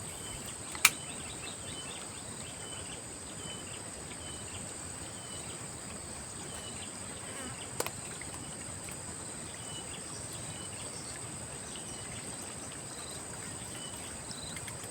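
Outdoor insect chorus: a steady high-pitched buzz with a short chirp repeating roughly twice a second. Two brief sharp clicks are heard, one about a second in and another near the middle.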